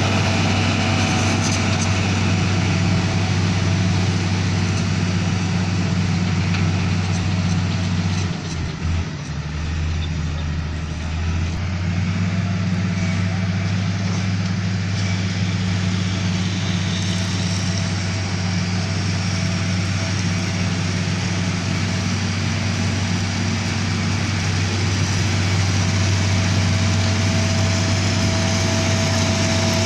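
Komatsu GD555 motor grader's diesel engine running steadily under work. Its speed and level dip for a few seconds about eight seconds in, then pick up again.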